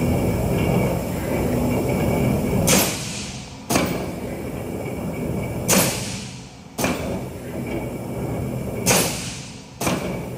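300-ton Verson straight-side mechanical stamping press running under power, with a steady machine hum. Three times, about three seconds apart, a burst of hissing air lasting about a second is followed by a sharp knock as the press cycles.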